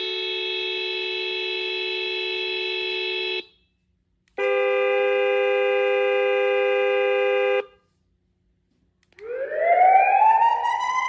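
Remote-control car sound module's speaker playing horn sound effects: two steady chord-like horn blasts of about three seconds each with a short gap between, then a siren wail that rises in pitch near the end.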